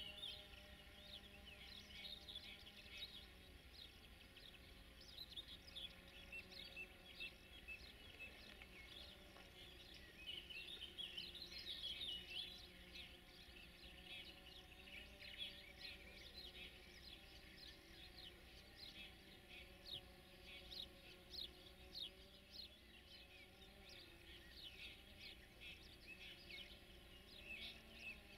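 Faint birdsong from several small birds, a dense run of short, high chirps throughout, with a faint low steady background.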